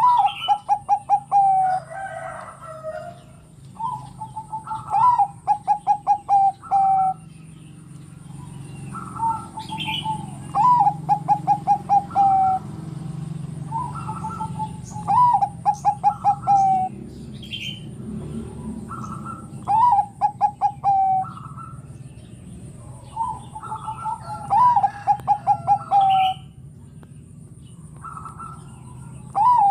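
Zebra dove of the Bangkok perkutut strain cooing in repeated phrases about every four to five seconds. Each phrase is a short lead-in note followed by a quick run of about eight staccato coos.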